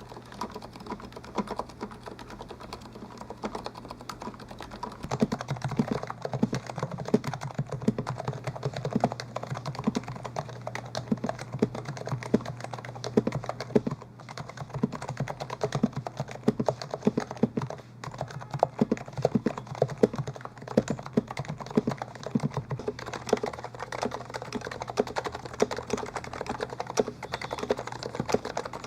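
Fast continuous typing on an HHKB compact keyboard, a quick run of key clicks and bottom-outs. The strokes get fuller and louder about five seconds in and ease off a little near the end, over a faint steady hum.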